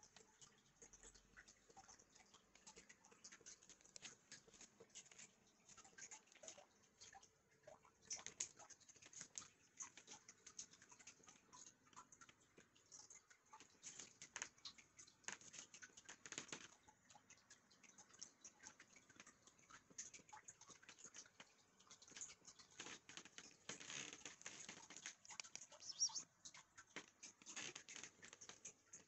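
Near silence with faint, irregular small clicks and rustles, coming in slightly louder clusters a third of the way in, around the middle and near the end.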